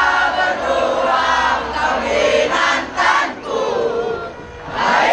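Large crowd of football supporters singing together in unison, with a short break between phrases near the end.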